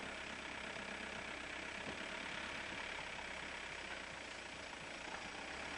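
Car engine and tyre noise heard from inside the cabin while driving, a steady low hum under an even hiss with no change in pitch.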